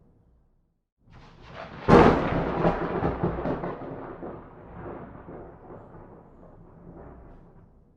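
A thunderclap: a rumble builds after about a second of silence, breaks into a sharp, loud crack about two seconds in, then rolls and crackles, fading away over the next five seconds.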